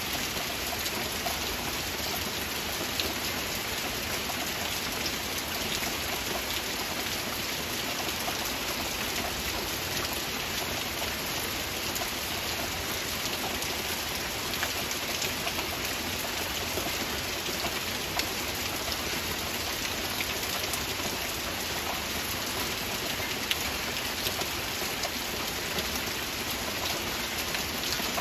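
Steady heavy rain: a dense, even hiss of falling rain with scattered individual drop ticks, unchanging throughout.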